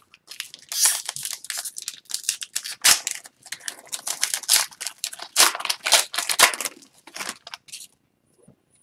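A hockey card pack's wrapper being torn open and crinkled, then the stack of cards handled and slid against each other: a dense run of irregular crackling and rustling that stops about a second before the end.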